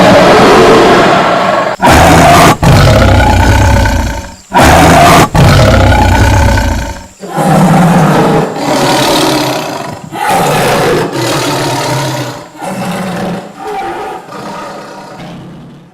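Tiger roaring: several long, loud roars in the first half, then a run of shorter roars about a second apart that grow quieter.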